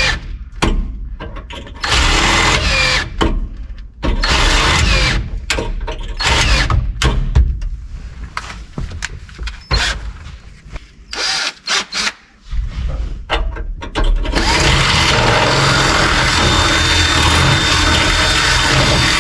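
Power drill running in short stop-start bursts, then held on steadily for the last several seconds.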